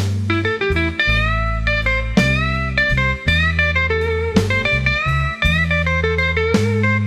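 Background music: a guitar instrumental of plucked notes that bend and slide in pitch, over a steady bass line.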